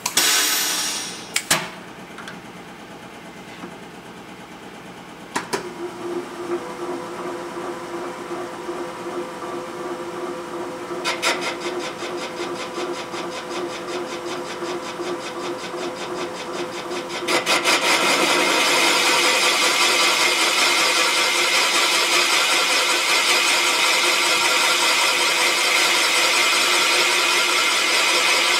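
Serdi valve-seat machine starting up and spinning a 90-degree carbide cutter that machines the cast-iron Pontiac 455 cylinder head for a hardened valve seat insert. The motor runs steadily with a hum; a little past halfway the cutter bites in and the sound grows much louder into an even, hissing cutting noise that holds steady.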